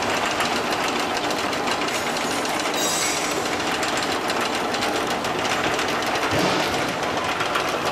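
ZP 23B rotary tablet press running and pressing chicken bouillon cubes: a fast, dense, steady mechanical clatter.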